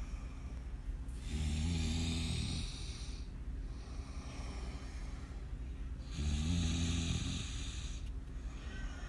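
A man snoring in his sleep: two long snores about five seconds apart, each a low buzzing tone with a breathy hiss, over a steady low background hum.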